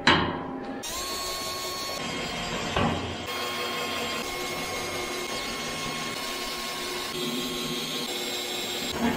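Cordless drill running steadily with a whine against a steel oil drum where a hinge is being fixed on. There is a sharp knock at the start and a duller thump about three seconds in.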